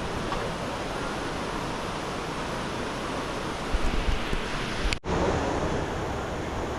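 Steady roar of rushing water from a large waterfall, with a few low bumps of wind on the microphone about four seconds in and a brief dropout at a cut about five seconds in.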